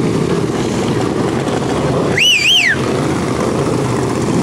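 Several racing lawn mowers' engines running together in a steady drone as they lap the dirt track. About two seconds in, a shrill whistle rises and falls twice.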